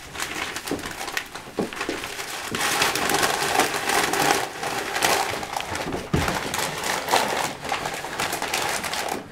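Gift wrapping paper being torn and crumpled by hand: a continuous crackling rustle with many sharp crinkles.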